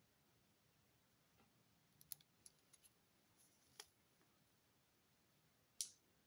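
Faint clicks and light crinkles of a paper-wrapped chocolate bar being handled and turned over in the hands. A small cluster comes about two seconds in, a single click near four seconds, and the loudest tap just before the end.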